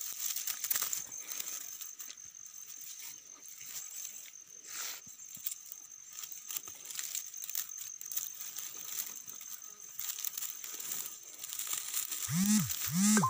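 Close crackling and rustling as a rope is handled right by the phone's microphone, with many small clicks over a thin, steady high hiss. Near the end there are two short low sounds, each rising then falling in pitch.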